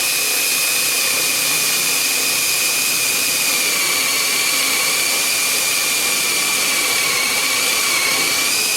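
Power drill running steadily, boring a concealed-hinge cup hole into a cabinet door through a Kreg hinge jig. Its high whine holds steady and sags slightly near the end.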